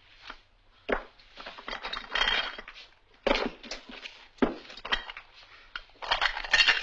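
Irregular clinks, knocks and short scraping noises of kitchen things being handled, with about five louder hits spread through and the busiest clatter near the end.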